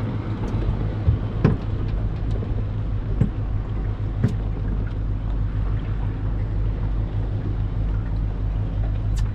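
Bay boat's outboard engine idling with a steady low hum, over wind and water noise, with a few light knocks in the first half.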